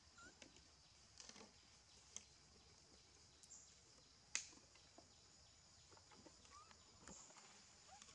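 Quiet forest ambience: a steady high hiss, a few faint short chirps, and scattered small clicks and rustles, the sharpest a single click about four seconds in.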